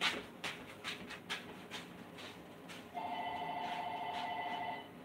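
A telephone ringing: one warbling two-tone ring lasting just under two seconds, starting about three seconds in and cutting off. Before it come a few light knocks.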